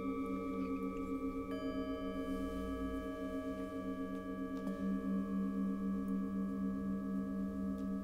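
Metal singing bowls struck with a felt-tipped mallet, their tones ringing on and overlapping with a slow, wavering pulse. Fresh strikes add new tones about a second and a half in and again near five seconds in, the second one deeper and louder.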